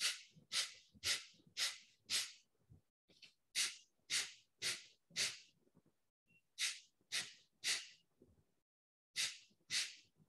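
Kapalbhati breathing: sharp, forceful exhalations pushed out through the nose, about two a second, in shrinking groups of five, four, three and two with short pauses between. These are the last of the descending-order sets.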